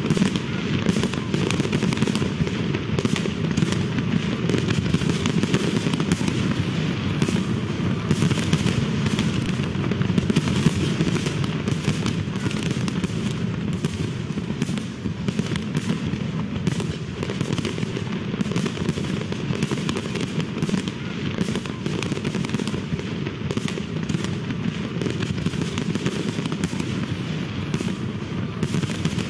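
Aerial bomb fireworks going off in a dense, unbroken barrage of overlapping bangs and crackles, several each second.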